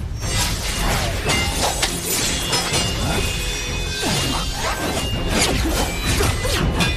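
Battle sound effects with a rapid run of shattering and crashing impacts and whooshing sweeps, over dramatic background music.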